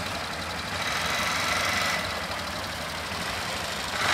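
Several quad bike engines idling together in a steady low throb, a little louder for a second or so about a second in.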